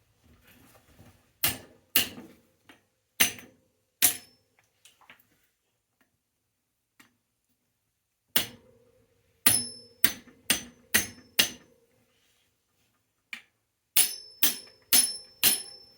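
Hammer blows on metal in three bunches of about four to six sharp strikes, many of them followed by a short metallic ring.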